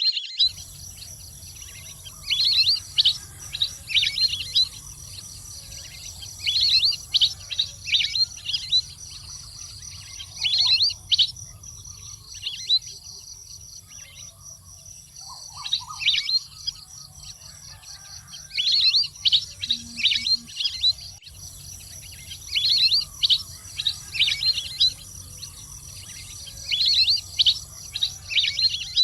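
Duck calls: clusters of short, high whistled chirps coming in bursts about every four seconds, over a steady low hum.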